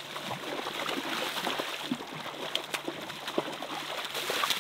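A hooked sockeye salmon thrashing and splashing in shallow water as it is dragged to the gravel bank, over the steady rush of the river.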